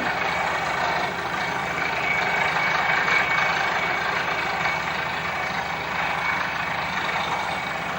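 Heavy engine of a bore-drilling rig running steadily, with a thin steady whine above the engine noise.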